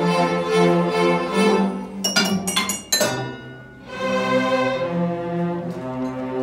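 School string orchestra of violins and cellos playing sustained notes. About two seconds in, a quick run of sharp, bright clinking strikes rings out; the music drops away briefly and the strings come back in about a second later.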